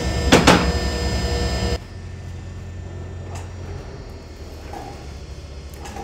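Sawmill machinery running with a steady hum, with two quick knocks in the first second; about two seconds in the hum cuts off abruptly, leaving a quieter, even background.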